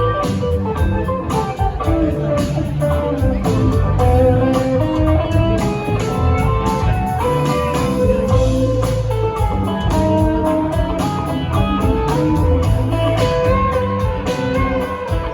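A rock band playing live: electric guitar lines over bass and drums, with a steady beat.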